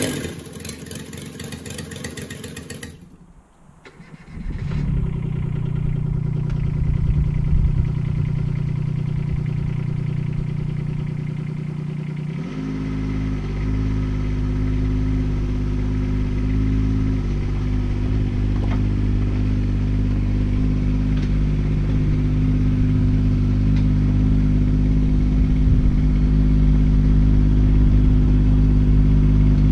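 Kubota K008 mini digger's diesel engine running steadily as the machine tracks across a yard. About twelve seconds in, its note steps up to a heavier, stronger sound and holds there, growing slightly louder toward the end.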